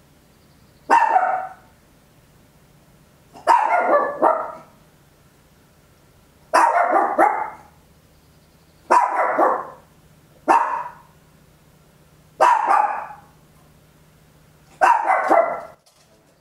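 Papillon, a tiny toy dog, barking very loud in seven bursts of one to three barks each, about every two seconds.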